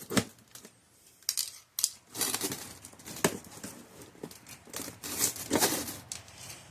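Scissors cutting into a parcel's packaging: irregular snips, scrapes and crinkles, with a sharp snip right at the start and a longer rasp about five and a half seconds in.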